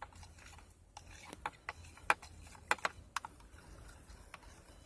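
About ten light, sharp clicks and taps at irregular intervals, the loudest a little after two seconds, over a faint low hum.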